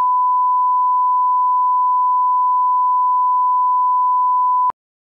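1 kHz reference test tone accompanying colour bars: one steady, unbroken beep at a single pitch, the line-up tone used to set audio levels. It cuts off abruptly near the end with a slight click.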